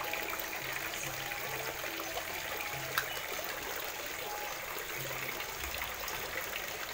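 Steady trickle of running water at a small concrete fish pond, with one sharp click about three seconds in.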